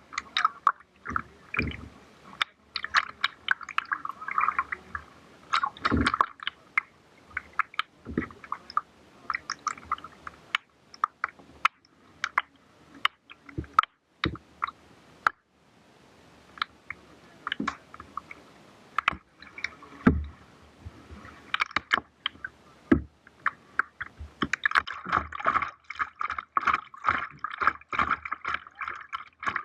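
Kayak paddling on the water: irregular splashes and drips from the paddle blades, with scattered sharp clicks. The splashing becomes denser and more continuous over the last few seconds.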